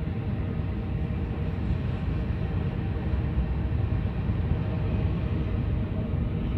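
Open ore wagons of a long freight train rolling along the rails beneath a viaduct: a steady low rumble of wheels on track.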